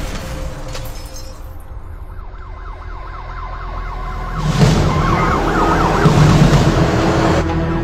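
The rumble of a car explosion dies away, then sirens wail with fast, repeated rising sweeps. A sudden loud burst comes about four and a half seconds in.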